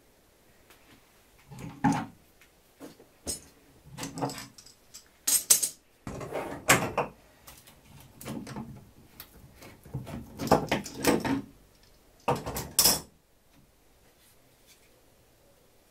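Steel screw bar clamps being loosened and lifted off a glued plywood workpiece: an irregular string of metal clanks, clicks and short scrapes as the clamps' bars slide and knock. The clatter stops about thirteen seconds in.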